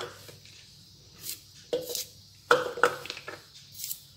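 A few scattered light knocks and clinks as shallots and garlic cloves are cut with a kitchen knife and the pieces are dropped into a plastic blender jar, with a sharp click right at the start.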